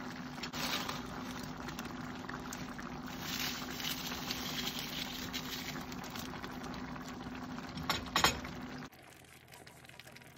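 Squash and sardine stew simmering and bubbling in a wok, with a steady low hum beneath. Two sharp knocks come about eight seconds in, and the sound drops away abruptly about a second later.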